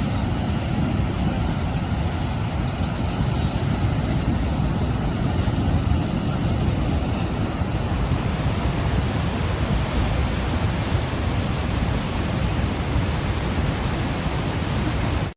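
Niagara Falls' falling water: a steady, loud rushing roar.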